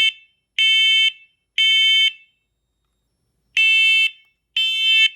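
Smoke and carbon monoxide alarm sounding its loud test alarm: high-pitched half-second beeps in the temporal-three pattern, three beeps a second apart, a pause, then the next set of three begins. Three-beep groups are the standard smoke evacuation signal.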